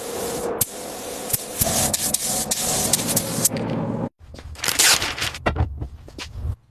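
Car bodywork workshop noise: a steady hiss with scraping and scattered clicks that cuts off abruptly about four seconds in, followed by a shorter hissing burst and a few knocks.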